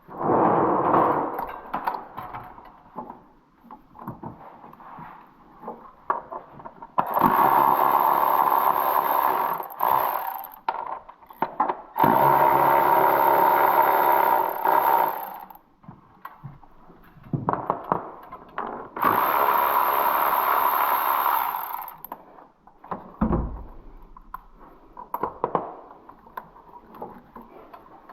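A cordless power tool running in three runs of about three seconds each with a steady whine, between scattered clicks and knocks of hand tools, as bolts are run out of the bracket over a Toyota Tacoma's coil pack.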